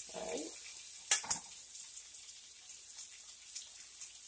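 Sausage patties and bologna slices sizzling in a frying pan, a steady hiss of fat as they brown. About a second in come two sharp clicks, a fork tapping against the pan.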